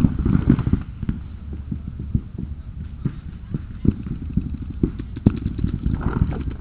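Irregular thumps and knocks of a body-worn camera being jostled as its wearer moves, with a dense cluster in the first second and sharper single knocks later, over a steady low rumble of handling noise.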